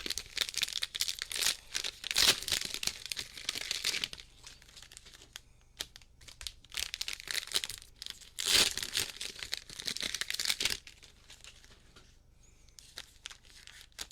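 Cellophane wrappers of trading-card cello packs crinkling and tearing as they are opened by hand, in two long bouts with a short pause between and fainter rustling near the end.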